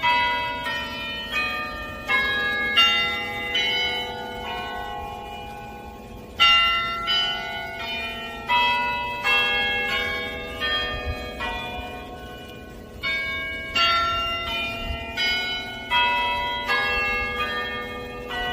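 Church bells ringing a peal: a steady run of struck bell notes, each left to ring on so that they overlap.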